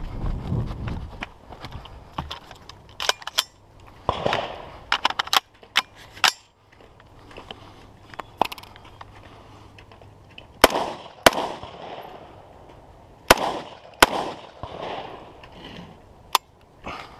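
Semi-automatic AR-style rifle fired as single shots at irregular intervals, each a sharp crack. The loudest shots come in the second half, spaced about a second apart, each with a short ringing echo.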